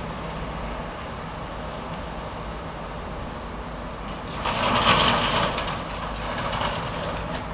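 An approaching passenger train, rumbling steadily, with a louder burst of noise about halfway through.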